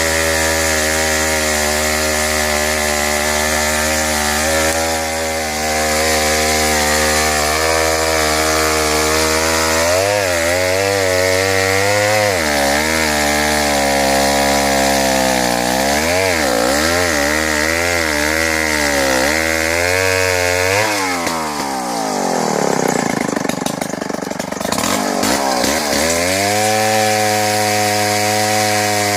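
Vintage Solo Rex two-stroke chainsaw running hard while cutting through a tree. Its pitch holds steady, then wavers and sags repeatedly under load from about a third of the way in. About three quarters of the way in it drops low and rough for a few seconds before climbing back to a steady high pitch.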